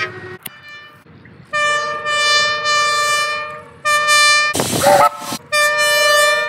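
Train air horn sounding a multi-note chord: one long blast, then a short one, then another blast. Between the last two comes a brief loud rush of noise. The recording is sped up one and a half times, which raises the horn's pitch.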